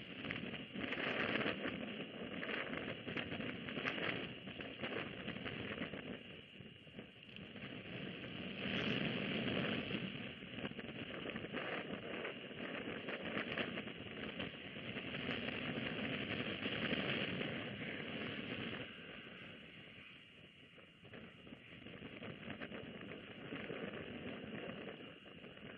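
Crackling and rustling of dry nest straw, sticks and feathers close to the microphone as bald eagles shift and preen in the nest. It swells and fades in waves, over a steady high-pitched hiss.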